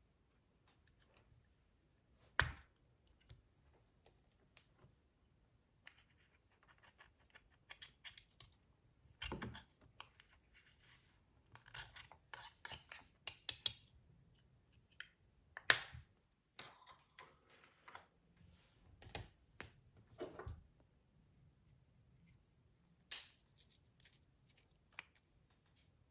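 Close-up handling of slime mixed with makeup: irregular sticky clicks and crackles, in quick clusters with a few sharper snaps.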